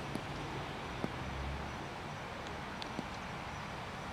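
Steady outdoor background noise with a low rumble, and a few faint clicks: one near the start, one about a second in and one about three seconds in.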